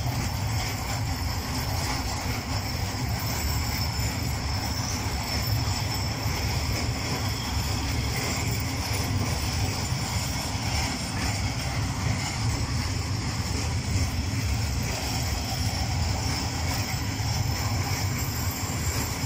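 Freight train of covered hopper wagons rolling past at steady speed: a continuous low rumble and clatter of wheels on the rails.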